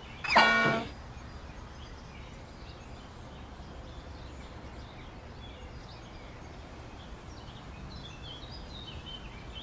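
Outdoor ambience sound effect: a steady background hiss with small birds chirping faintly on and off. About half a second in, a brief loud pitched sound effect falls in pitch and stops within half a second.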